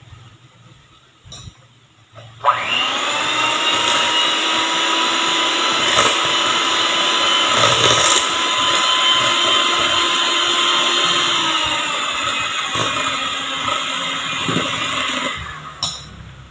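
Electric hand mixer running, its beaters whirring through a liquid mix of eggs, sugar and lemon juice in a stainless steel pot. The motor spins up about two and a half seconds in, runs steadily, and switches off near the end.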